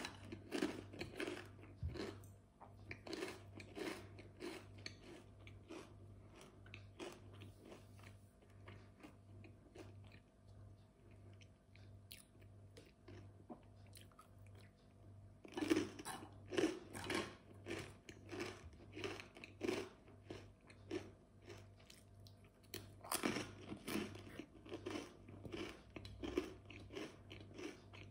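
Close-up crunching and chewing of a crisp snack, in bouts of about one to two crunches a second. The bouts are loudest right at the start, about 16 seconds in and about 23 seconds in, with softer chewing in between.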